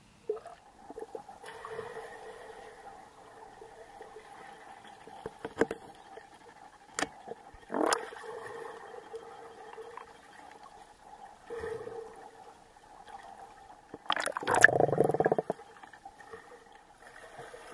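Swimming-pool water heard from below the surface: a steady muffled hum with gurgling, a few sharp knocks, and one loud burst of churning water about fourteen seconds in.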